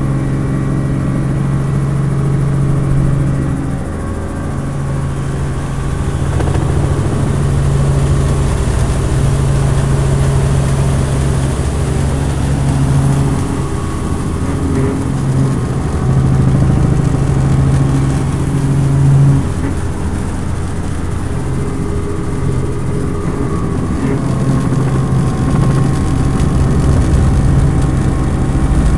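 Cabin noise of a light two-bladed helicopter in flight: the engine and rotor make a steady drone, with a low hum that swells and fades every few seconds.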